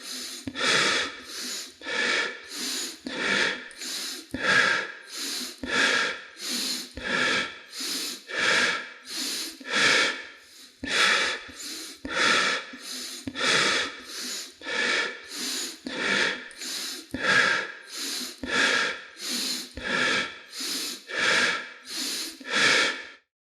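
A person breathing rapidly and audibly, quick in-and-out breaths of about one to two a second, alternating stronger and weaker, that stop abruptly near the end.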